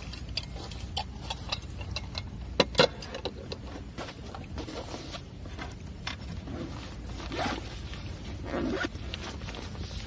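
Sharp clicks and knocks of metal gear handled on a wooden board, loudest twice about two and a half seconds in, then the zipper of a soft insulated bag pulled open in a couple of longer strokes near the end. A steady low rumble sits underneath.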